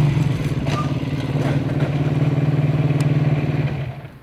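Supermoto motorcycle engine running at a steady pitch, then cutting out near the end as the bike goes down onto its side.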